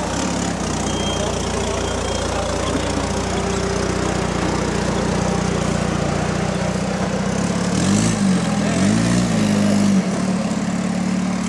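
Rock-crawler buggy's engine running at low revs under load, then blipped up and back down twice in quick succession about eight and nine seconds in as it climbs.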